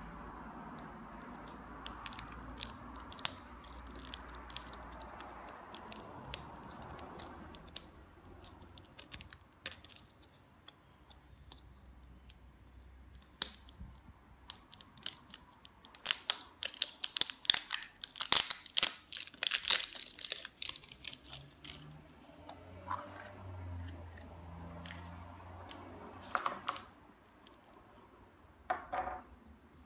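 A plastic mystery egg handled in the hands: scattered clicks, then a dense run of crinkling and tearing as its plastic wrap label comes off. Near the end come a few sharper plastic clicks as the egg is opened.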